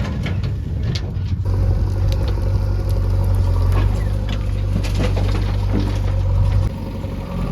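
JCB 3DX backhoe loader's diesel engine running with a steady low hum. It gets louder and deeper about a second and a half in and drops back near the end, with a few light knocks.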